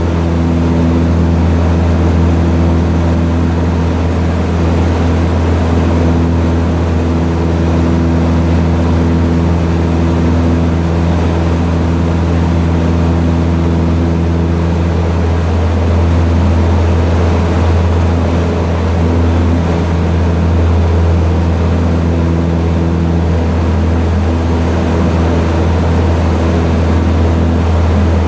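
Ultralight aircraft's engine and propeller droning steadily in flight, a low hum with wind rushing over the open cockpit.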